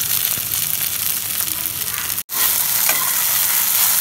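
Soaked sago pearls sizzling as they fry in hot ghee in a pan, poured in and stirred with a spatula. The sound drops out for an instant at an edit about two seconds in, then the sizzling resumes a little louder.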